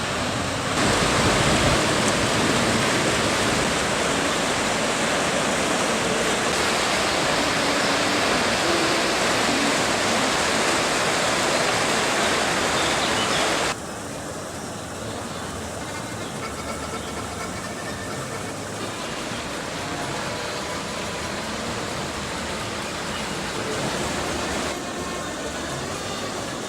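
Water of a park fountain, the Märchenbrunnen, splashing and rushing steadily. Just under halfway through it drops suddenly to a quieter rush.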